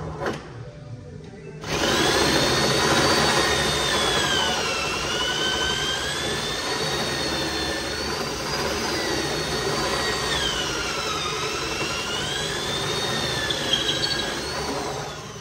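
Electric drill with a long bit boring into the end of a solid hardwood slab, starting about a second and a half in. The motor's whine sags and recovers in pitch as the bit bites, then winds down near the end.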